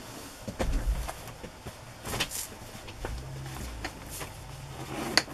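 Fabric pieces and a cardboard book cover being handled on a cutting mat: soft rustling with a few light knocks and a low thud about a second in.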